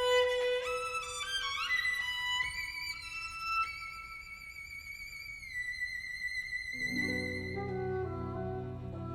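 Orchestral music led by a solo violin: a quick rising run up to a long, high held note with vibrato. Lower sustained instruments come in about seven seconds in.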